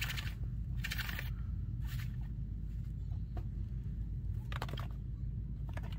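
A baby chinchilla nibbling, with several short, scratchy crunches spaced irregularly over a steady low hum.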